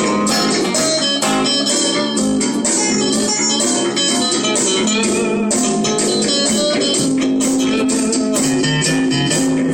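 Guitars jamming in a blues-rock style, a steady stream of quick picked notes.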